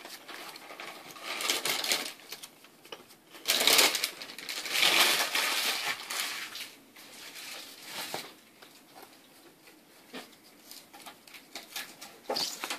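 A deck of sleeved Yu-Gi-Oh cards being shuffled by hand: several bursts of card rustling and flicking, loudest from about four to six seconds in, then quieter, with light clicks of cards on the mat.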